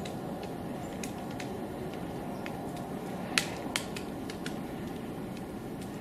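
A woodpecker tapping and chipping at tree bark in single, irregularly spaced sharp taps, two of them louder about three and a half seconds in, over a steady low background noise.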